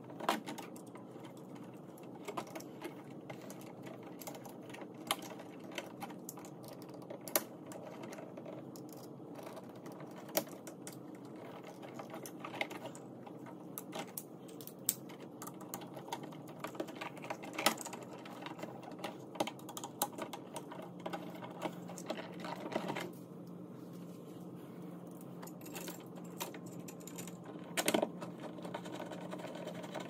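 Irregular small clicks and taps of a hand screwdriver on a toggle light switch's screw terminals and metal mounting strap as wires are tightened down and the switch is screwed into the wall box, over a steady low hum.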